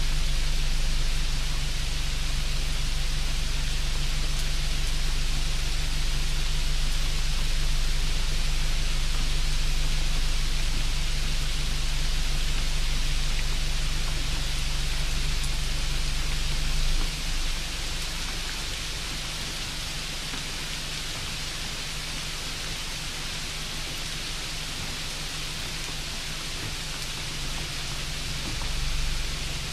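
Steady, even hiss with a low hum underneath. About seventeen seconds in, the hum thins out and the hiss gets a little quieter.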